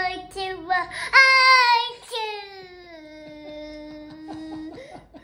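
A toddler singing in a high voice without clear words: a few short notes, a loud held note about a second in, then one long note that slides slowly down in pitch for over two seconds.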